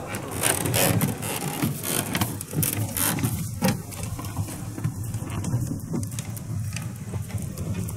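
Footsteps of several people walking across a suspension footbridge's plank deck: irregular taps and clacks over a steady low rumble.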